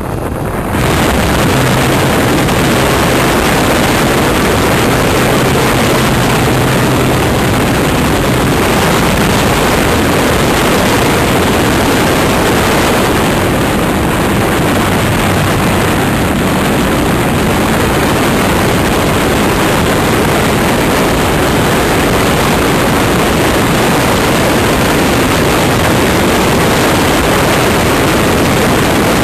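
Steady rush of airflow over the onboard camera's microphone on a model motor glider in flight, with a faint low hum of the glider's motor and propeller from about a second in until about eight seconds in.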